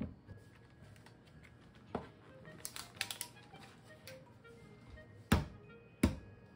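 An egg knocked twice on a hard countertop to crack its shell: two sharp knocks under a second apart near the end, after a few lighter clicks and taps. Soft background music plays under it.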